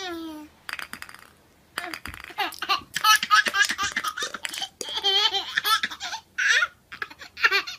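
A baby laughing: a short high squeal falling in pitch, a brief pause, then a long run of rapid, choppy giggles and belly laughs.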